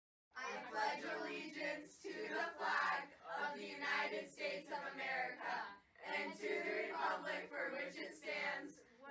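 A group of voices reciting the Pledge of Allegiance in unison, starting a moment in after a brief silence.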